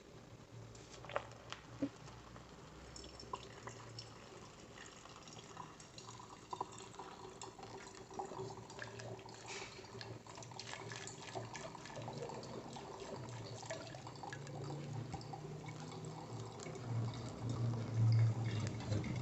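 Faint running and dripping water with scattered light clinks and knocks.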